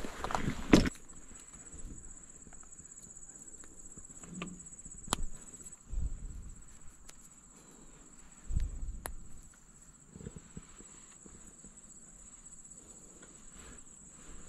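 A steady, high-pitched trill of night insects, with a few footsteps crunching on river-stone gravel and light clicks of gear being handled. Loud rustling and crunching fills the first second.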